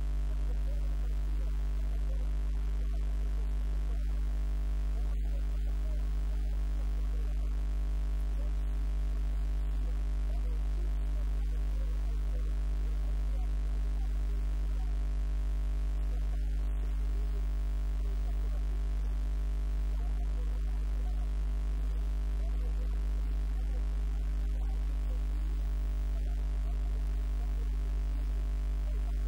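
Steady electrical mains hum: a low drone with evenly spaced overtones that does not change.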